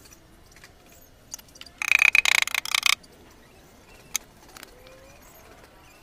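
A brief jangling clatter about two seconds in, lasting about a second, with a few faint clicks around it.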